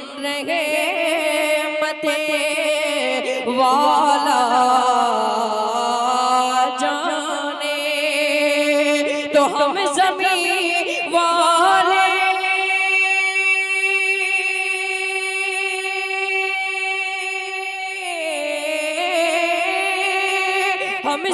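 Solo voice singing a naat in long melismatic phrases with wavering ornaments, holding one steady note for several seconds past the middle before sliding down.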